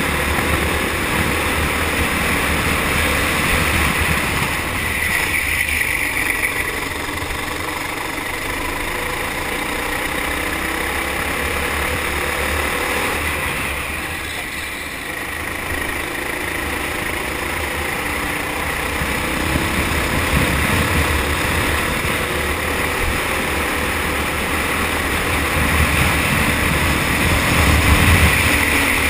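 Four-stroke kart engine running hard at speed, heard from a camera mounted on the kart, with a rush of air noise. The engine sound drops back briefly about halfway through and builds again near the end as the kart slows for a corner and accelerates out.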